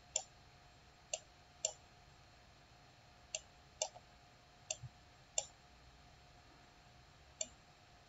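Faint computer mouse button clicks: about eight short, sharp clicks at irregular intervals, some in quick pairs half a second apart.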